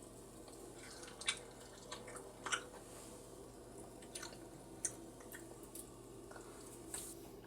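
Wet eating sounds: chewing with a handful of short, sharp sticky clicks and squishes scattered a second or so apart.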